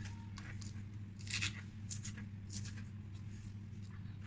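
Kitchen knife slicing spring onion on a plastic cutting board: a handful of short, crisp cuts at uneven intervals, over a steady low hum.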